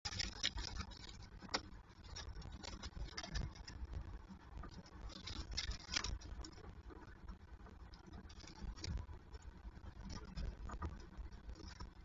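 Young peregrine falcons shuffling and feeding in a wooden nest box: irregular pattering, scratching and sharp clicks of feet and beaks on the boards among plucked feathers, over a low rumble.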